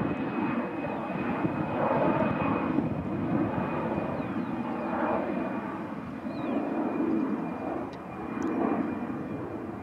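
Airbus A350-1000's Rolls-Royce Trent XWB-97 turbofans on short final and landing: a steady jet rumble with a faint, steady high whine over it.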